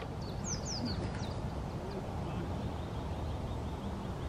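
Birds chirping outdoors over a steady low rumble: a few short, falling high chirps about half a second to a second in, then a faint rapid run of high notes later on.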